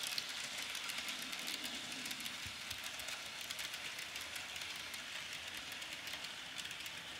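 Bachmann N-scale 0-6-0 model locomotive running smoothly around its track: a faint steady whir with light clicking of wheels on the rails.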